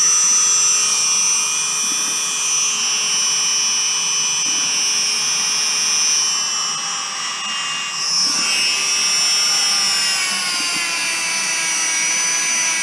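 Dremel rotary tool running at high speed, its small grinding bit held against the scuffed lip of an alloy wheel to grind off burrs: a steady high whine that dips briefly about seven seconds in, then picks back up.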